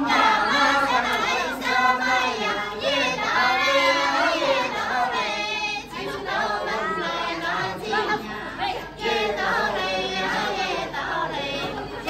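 A group of Dong women singing a toasting song together in high voices.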